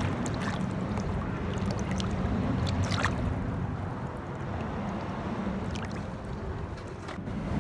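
Shallow water sloshing and lapping as a gutted snapper is swished back and forth in it to rinse it, over a steady low rumble.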